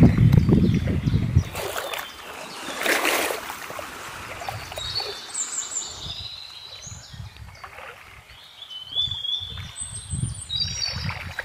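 River water lapping and washing against a stone bank in small waves, with a few short bird chirps. A loud low rumble fills the first second and a half.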